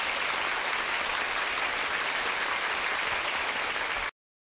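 Audience applauding steadily; the applause cuts off abruptly about four seconds in.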